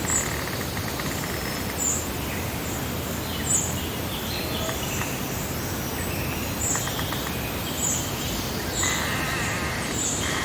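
Meadow ambience: several birds calling and singing over a steady hiss of breeze, with a short high chirp repeating about every second and a half.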